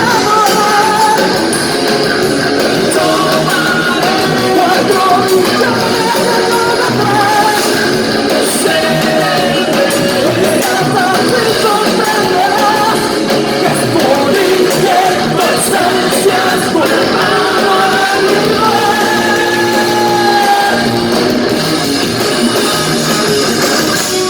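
Rock song performed by a band: a singer's voice carrying the melody over guitars and a full backing.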